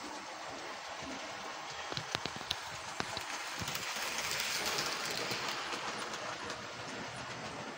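Model train running on its track: wheels rolling over the rails with a steady hiss, and a cluster of sharp clicks about two to three seconds in as the wagons pass over the rail joints.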